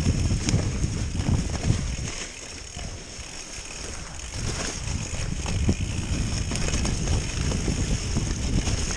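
Mountain bike descending a rough, muddy woodland trail at speed: tyres on dirt, roots and leaves, and the bike rattling irregularly over bumps. It eases off for about two seconds in the middle, then builds up again.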